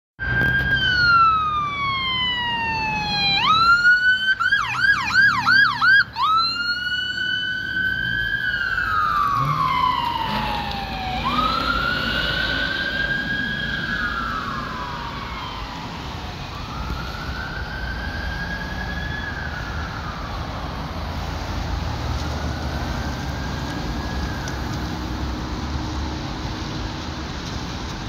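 Police car's electronic siren on a wail that slowly rises and falls, switching to a fast yelp for about two seconds about four seconds in, then back to the wail and growing fainter as the car moves away. Traffic noise runs underneath.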